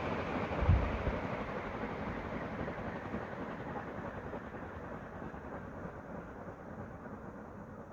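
Air rush from a Veto Gold ceiling fan with SMC-made Veto blades, fading steadily as the fan slows, with a low thump under a second in.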